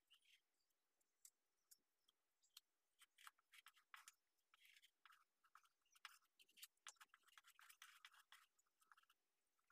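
Very faint, irregular scraping and ticking of body filler being spread and smoothed by hand over a rust-hole patch on a car's wheel arch.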